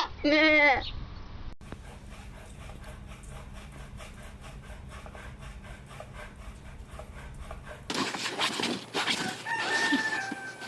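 Farm animal calls: a loud bleat tails off in the first second, then a quiet stretch with faint regular ticks. From about eight seconds in a rooster crows over clucking and scuffling.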